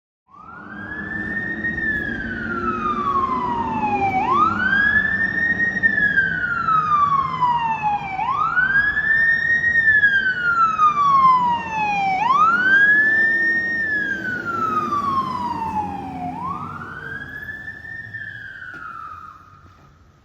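Fire engine siren wailing: each cycle rises quickly, then slides slowly down, repeating about every four seconds, five times. The truck's engine rumbles underneath, and the sound fades near the end.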